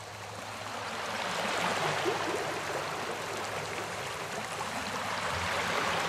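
Small sea waves washing up onto a sandy beach, a steady wash of surf that swells over the first two seconds and again near the end.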